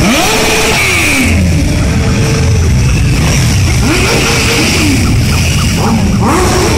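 A column of motorcycles, sport bikes and cruisers mixed, riding past at parade pace, several engines revving and rising and falling in pitch as they go by.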